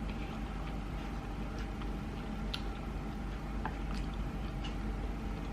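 Quiet chewing of sushi: a few soft, scattered mouth clicks and squishes over a steady low hum.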